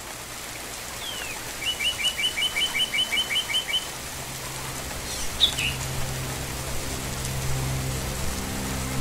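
Steady rain with a bird calling over it: a fast run of about a dozen repeated chirps, about six a second, in the first half, then a few single chirps about halfway. A low steady musical drone comes in after about five and a half seconds.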